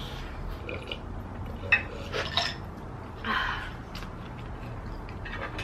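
Spoon clinking and knocking against the electric griddle pan a few times, followed by a short breathy noise.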